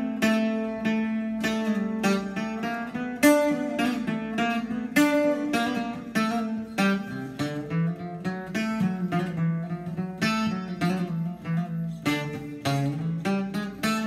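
Solo Greek bouzouki picked with a plectrum, playing a rebetiko tune in nine-beat time: quick single-note melody lines over ringing lower strings.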